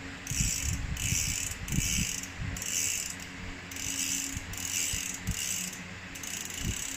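Rear hub freehub pawls ratcheting as the newly fitted 11-speed 11-42T cassette is spun by hand: about nine short bursts of rapid clicking, a little under a second apart, with light handling knocks underneath.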